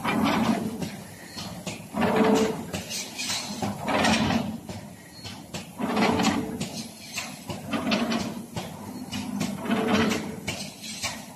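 CNC knife pleating machine folding filter paper and feeding the pleats into its comb collector, running in a steady cycle: a loud mechanical stroke about every two seconds, with lighter clicks in between.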